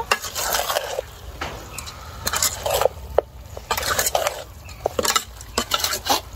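Metal kitchen utensils clinking and scraping against cookware: irregular sharp knocks mixed with short scraping and rustling sounds.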